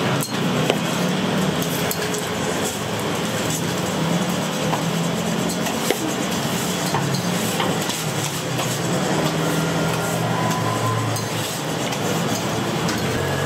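Metal utensils and pans clinking and scraping in a busy kitchen, many small sharp clicks over a steady background din.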